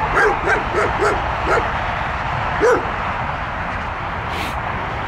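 An animal's short, high calls, each rising and falling in pitch, repeated quickly at about four a second. They thin out after a second and a half, with one more call near the middle, over a steady background rush.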